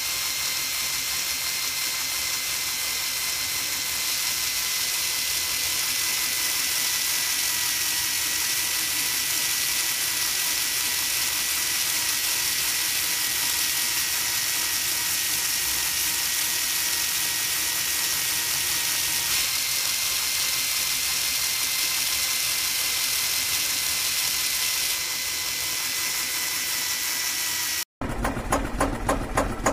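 Small geared DC motor of a homemade model tractor spinning its drilling auger: a steady high whine with gear buzz. After a brief cut near the end, a rhythmic pulsing motor sound of about three beats a second follows.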